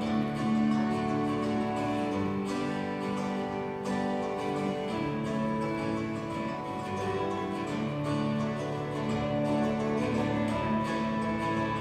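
Live gospel band playing an instrumental passage: strummed acoustic guitar with piano, bass and violin, steady and moderately loud.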